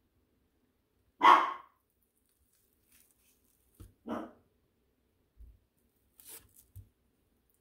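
A pet dog barking twice: one loud bark about a second in and a softer one about four seconds in. She barks whenever she sees her owner eating.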